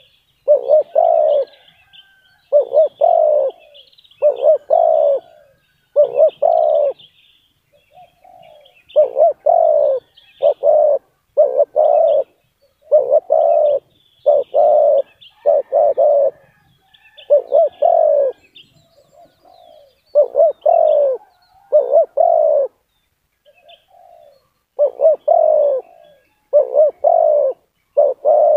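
Spotted dove cooing close by: short groups of two or three low coos, repeated over and over with brief pauses. Faint high chirps of small birds run behind.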